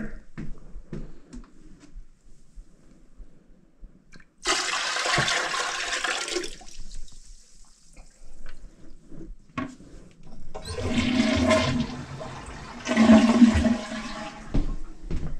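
Dirty drain water from a bowl being dumped into a toilet bowl, heard as rushing, splashing water. There is a first rush of water about four seconds in, then two heavier gushes near the end, the last one the loudest.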